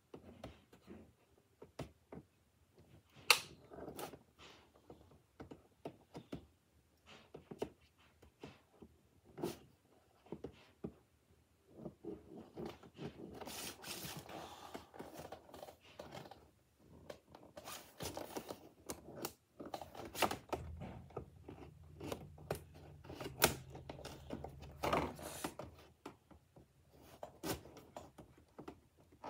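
Scissors snipping and scraping at a cardboard toy box, with scattered clicks and rustles as the box is handled. A sharp click about three seconds in is the loudest sound.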